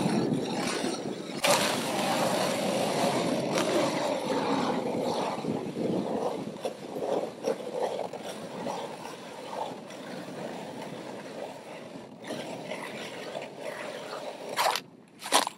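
Hand-cranked ice auger grinding and scraping as it bores through lake ice. The crunching is steady at first and turns uneven and scratchy in the second half, with a few sharp scrapes near the end.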